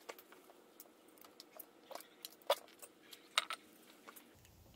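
Scattered light metallic clicks and taps as the differential side cover of a VW IRS transaxle is worked loose and lifted off the case.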